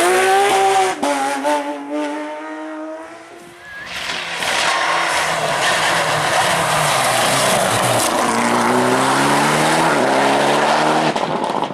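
Rally cars passing at speed. One car's engine note drops and fades over the first few seconds through gear changes. A second car then arrives loud with a broad rushing noise, and its engine note climbs through the gears in the last few seconds.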